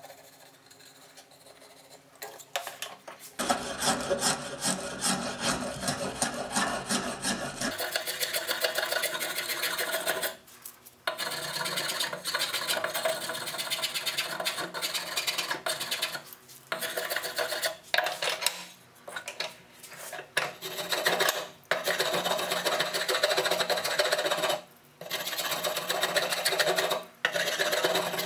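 A hand tool scraping along the edge of a curved wooden board, starting about three seconds in and running in long stretches of strokes broken by short pauses.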